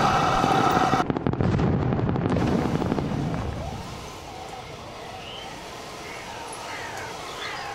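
Heng Long RC Panther tank's sound unit playing its engine-running sound. About a second in, it gives way to a dense crackling rattle lasting two or three seconds, which then dies down to a quiet background with faint chirps.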